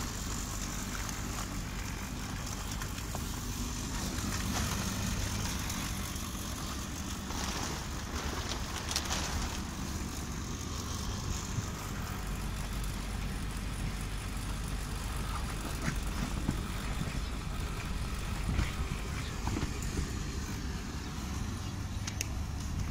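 Steady low mechanical hum and rumble, with a few light knocks and rustles scattered through it.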